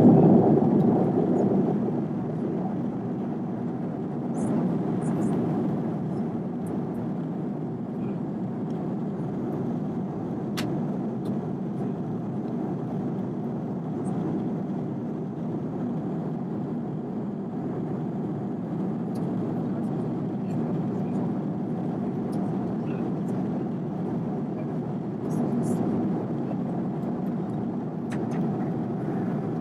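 Steady rush of jet airliner cabin noise in flight, the engines and airflow heard from a window seat. It is louder for the first second or so, then holds even, with a few faint clicks.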